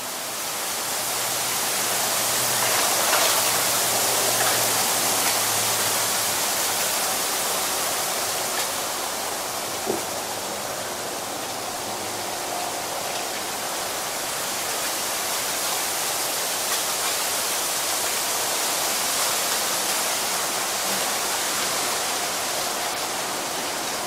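Strong wind blowing through a bamboo grove: a steady, dense hiss of rustling bamboo leaves that swells and eases slightly. A single short click about ten seconds in.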